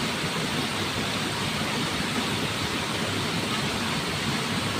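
Steady, even rush of flowing river water, with no separate splashes or knocks.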